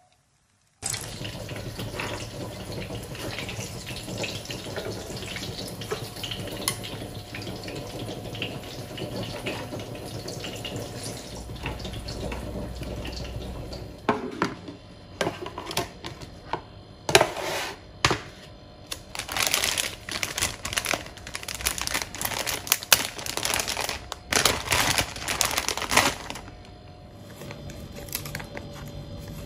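A steady rush of running water that stops about fourteen seconds in, followed by irregular clattering and knocks, the loudest sounds, for about twelve seconds.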